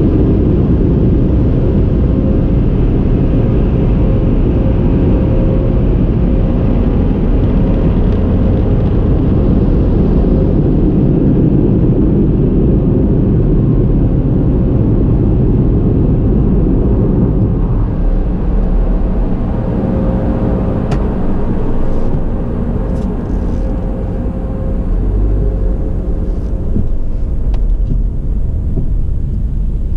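Car wash exit air dryers (blowers) running loud and steady with a faint whine, heard from inside the car. The noise eases about eighteen seconds in, leaving a lower rumble with a few faint clicks.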